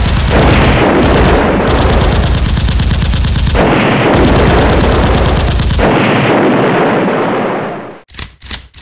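Movie-style automatic gunfire sound effects, a dense rapid stream of shots that fades away about six to eight seconds in, followed by a few short bursts near the end.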